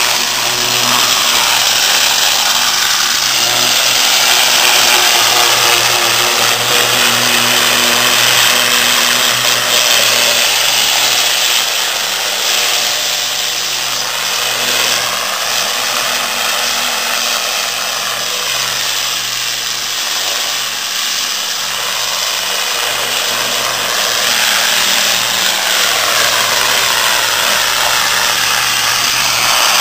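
Pressure washer jet spraying onto a bronze car sculpture: a steady hiss of water on metal over the constant hum of the washer's pump motor. The hiss shifts in tone as the lance sweeps across the body.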